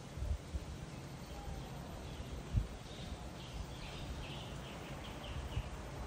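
A bird singing a quick run of short, high chirps in the second half, over a low outdoor rumble with a few soft thumps.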